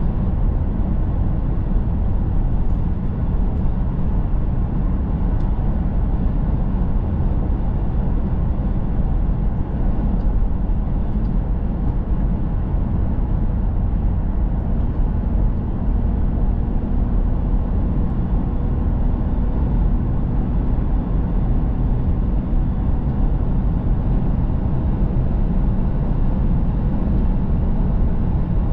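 A car driving steadily, heard from inside the cabin: an even, low rumble of tyres and engine.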